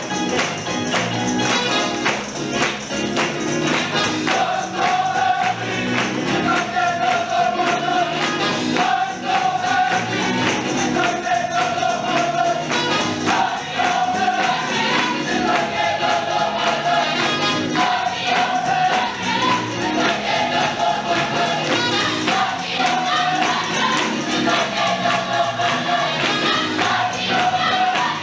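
Gospel youth choir singing a fast, up-tempo song over percussion keeping a quick, steady beat. From about four seconds in, the voices repeat short held notes again and again.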